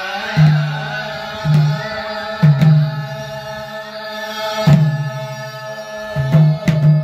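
Voices singing a slow chant, a long held melody line that wavers in pitch, over deep hand-played strokes on a madal, a two-headed barrel drum, coming irregularly about once a second.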